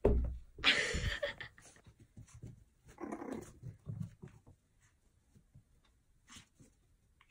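A Pomeranian puppy making short growly play sounds in a few bursts, the loudest about a second in and a couple more a few seconds later, then only faint scuffles.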